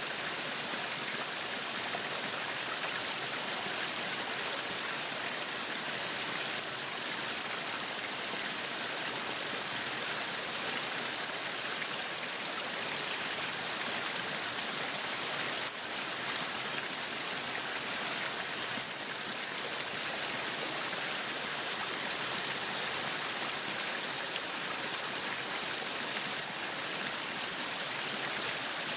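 Meat sizzling on a yakiniku grill: a steady, dense crackling sizzle.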